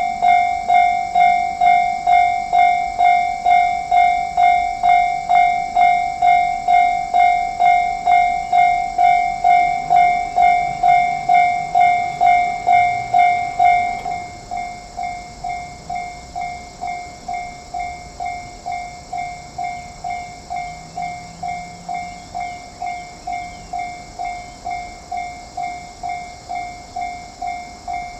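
Japanese railway level crossing's electronic warning bell ringing in an even, repeating clang, about three strokes every two seconds. About halfway through it drops noticeably in volume and keeps ringing.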